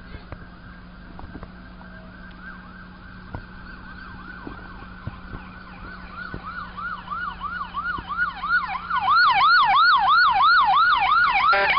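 A siren in a fast yelp, sweeping up and down about three times a second. It is faint at first, grows louder about six seconds in, and becomes loud about nine seconds in, as of an emergency vehicle approaching.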